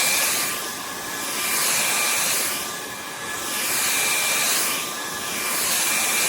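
SunSare X7A cordless stick vacuum running: a rushing airflow with a steady high motor whine that swells and fades about every second and a half.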